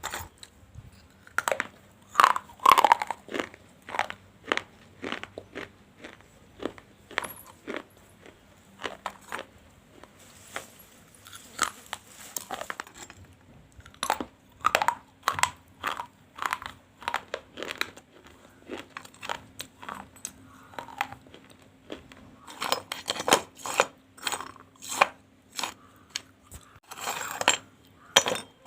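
Close-up crunching of someone biting and chewing pieces of a fired-clay gullak (money pot). It comes as irregular, sharp crunches, often one or two a second, with denser clusters near the start and toward the end.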